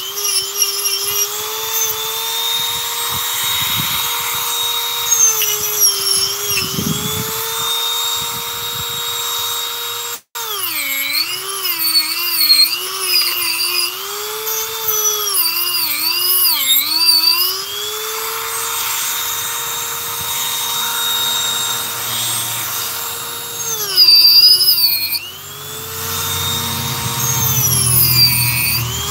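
Handheld Dremel rotary tool running at high speed while carving wood: a steady whine whose pitch dips and wavers again and again as the bit bites into the wood and the motor bogs under load. The sound cuts out for an instant about ten seconds in.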